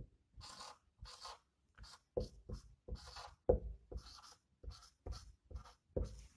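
Marker pen writing on a whiteboard: a quick run of short strokes as characters are written, with a few firmer taps of the tip.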